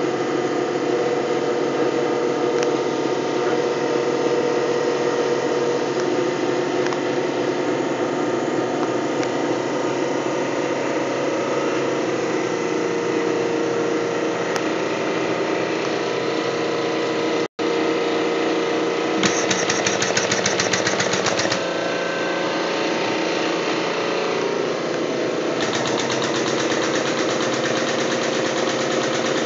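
Motor-driven apple grinder for a homemade cider press running steadily with a mechanical hum. The sound breaks off for an instant at a cut. A fast rattle joins for a couple of seconds after it, and again for the last few seconds.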